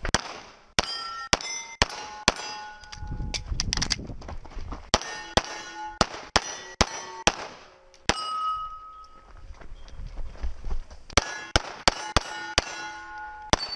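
Strings of 9mm pistol shots from a CZ Shadow 2, about half a second apart, each followed by the clang of a hit steel target ringing on. After a pause of about three seconds, a last fast string of shots and rings follows.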